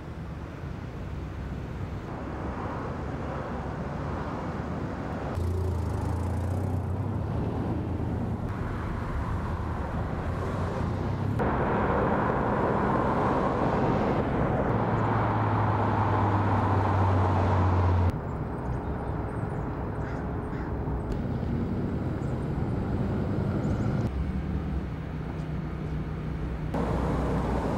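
Outdoor street sound of car traffic and running engines, changing abruptly several times.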